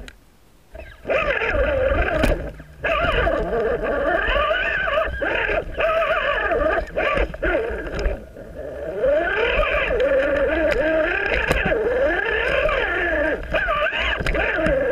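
RC rock crawler's electric motor and gear train whining, the pitch rising and falling with the throttle, with brief pauses near the start and about halfway through. Scattered clicks and knocks come from the crawler climbing over rocks and twigs.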